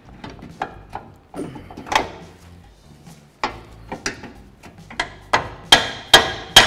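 Light metal clinks as the bolt is lined up in the new lower control arm's bushing, then, from about three and a half seconds in, a steel hammer tapping the bolt up through the bushing and subframe: a run of ringing metal strikes, two or three a second, getting louder.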